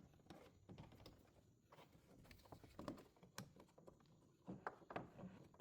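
Faint, scattered small clicks and knocks: pliers and a plastic turn-signal light socket being handled and twisted loose.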